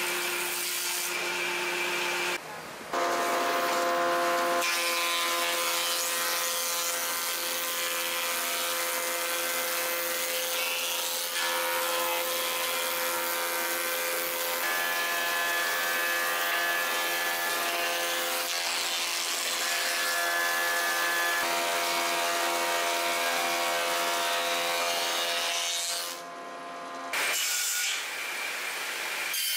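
Woodworking planers in use: a jointer-planer cutting a board fed over it, then, from about three seconds in, a thickness planer running with a steady whine under the hiss of wood being planed. Near the end this stops and a quieter circular-saw machine runs.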